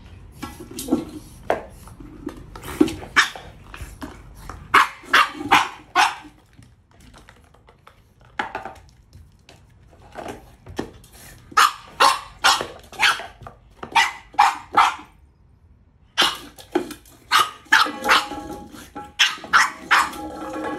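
French bulldog barking in several runs of quick short barks, about two or three a second, with pauses of a few seconds between the runs.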